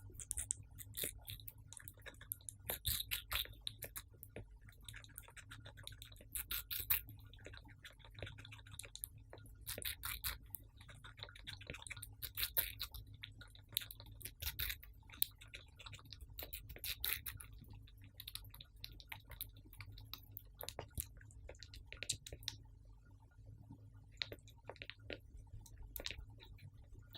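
Hamster nibbling and chewing watermelon: quick irregular clicks and crackles in clusters, thinning out near the end.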